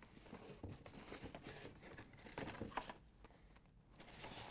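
Faint rustling and crinkling of blister-carded die-cast cars being handled and lifted out of a cardboard shipping case, with a few light taps.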